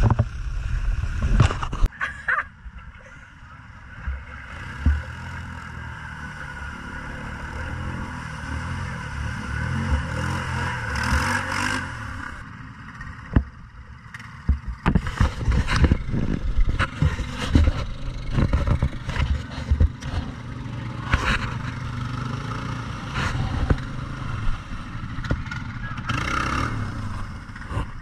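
ATV engines running and revving through deep mud water, rising and falling, with many sharp knocks and clatters along the way.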